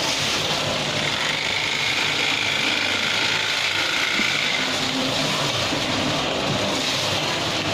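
Automatic sugar packing machine running, a steady mechanical noise, with a faint high tone through the middle few seconds.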